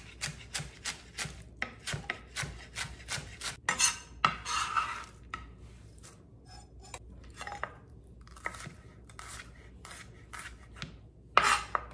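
Chef's knife slicing cabbage on a plastic cutting board, a quick run of cuts about three a second, with a scraping rustle partway through as the shredded cabbage is pushed off the board into a bowl. Sparser knife cuts follow as a red onion is sliced, with one louder knock or clatter near the end.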